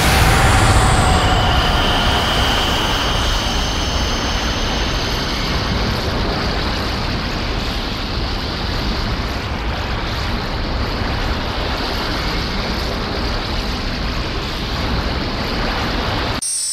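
Kaiju sound effect: a loud rush of rumbling noise that starts suddenly, with a faint high falling whistle in the first second or two, then slowly dies away before cutting off near the end.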